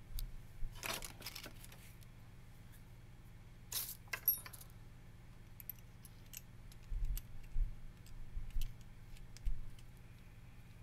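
Small metal parts clinking and rattling by hand: a steel cap screw and bushing knocking against a knurled aluminum handle as they are fitted together, in two bursts about a second in and about four seconds in. Scattered light ticks and soft low bumps from handling follow.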